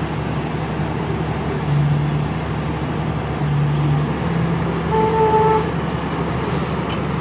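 Engine of a heavy vehicle running with a steady low hum over road traffic noise, swelling twice; a short high tone sounds about five seconds in.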